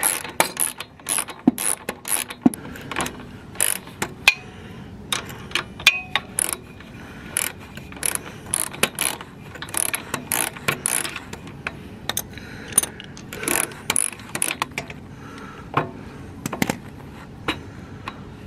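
Socket ratchet clicking in irregular short runs as it turns the lower rear shock mounting bolt of a motorcycle loose, with small metal clinks from the tool and bolt.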